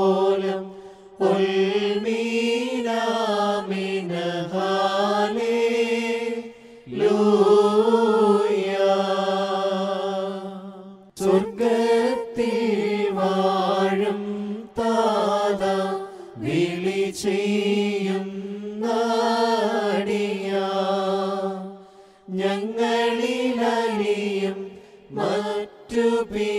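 Liturgical hymn chanted slowly to a melodic tune, phrase by phrase, each phrase lasting a few seconds with short breaks between them.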